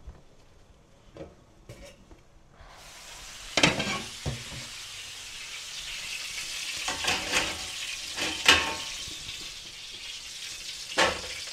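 Food starts sizzling in a hot pan about three seconds in and keeps frying with a steady hiss, while a utensil clanks against the pan several times.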